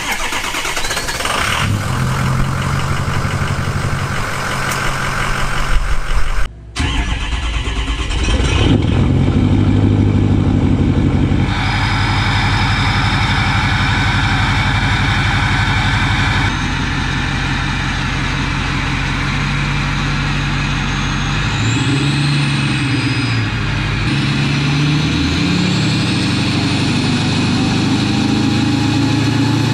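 Ford F-350 Super Duty truck engine cold-starting and then idling. The sound jumps abruptly a few times as the recording cuts between angles, and the pitch swings up and down a few times in the last third.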